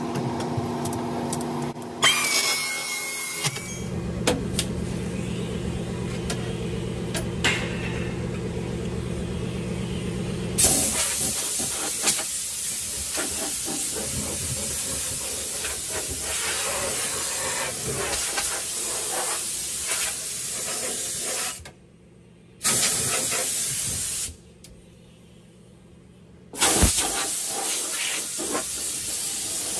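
Hand-held pneumatic tool running on sheet metal, a steady mechanical drone, then a loud continuous hiss from about ten seconds in. The hiss cuts out abruptly twice in the second half.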